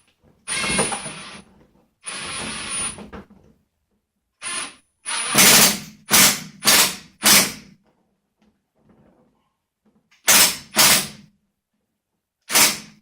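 Cordless power screwdriver driving the small machine screws into a printer panel in about ten short bursts of motor whine, some close together, with gaps between them.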